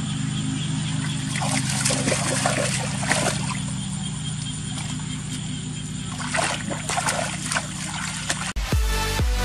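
Water splashing and sloshing in two spells of bursts, typical of a net being worked in shallow water, over a steady low hum. Near the end, electronic dance music cuts in abruptly.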